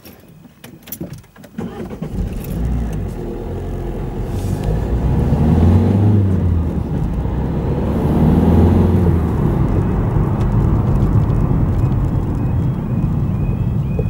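Car driving slowly along a lane, with engine and road rumble that swells and eases after a few clicks at the start. Near the end the level crossing's warning alarm comes in: short tones repeating over and over, sounding while the lights flash and the half barriers are down for an approaching train.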